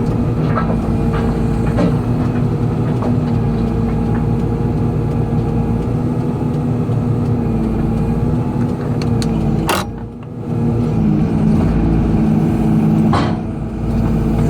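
Excavator diesel engine and hydraulics running steadily under working load, with sharp metallic knocks from the bucket. One loud knock comes about ten seconds in, the engine note dips briefly, and another knock comes near the end.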